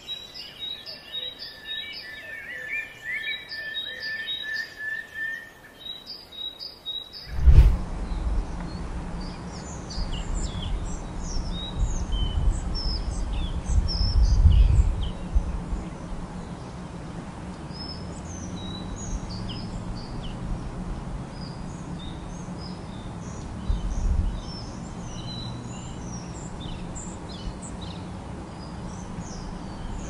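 Wild birds singing in a forest. In the first several seconds there are repeated short high chirps and a brief trill. After a cut about seven seconds in, many small scattered chirps go on over a steady outdoor rushing background, with low rumbles near the start of that part, again in the middle and once near the end.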